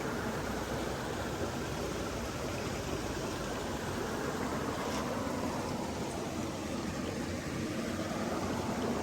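Flowing stream water rushing steadily, an even noise with no breaks.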